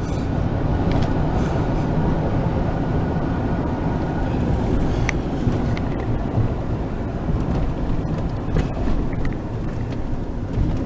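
Steady road and engine noise of a car driving along a highway, heard from inside the vehicle, with a few faint clicks.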